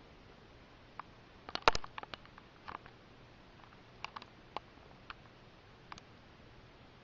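Border collie mix gnawing a dog bone: irregular sharp clicks and crunches of teeth on the bone, loudest in a quick cluster about a second and a half in, then a few scattered single clicks.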